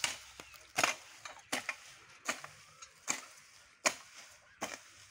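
Long-handled hoe scraping and chopping through dry leaves and soil in a steady rhythm, about seven strokes, one every three-quarters of a second.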